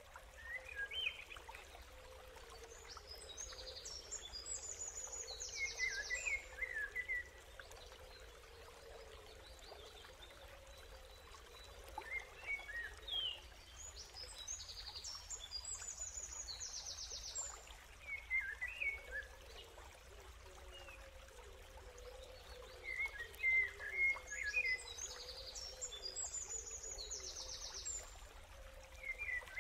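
Birds chirping over a steady rush of running water. The same cluster of calls recurs about every eleven seconds, as in a looped nature-ambience recording.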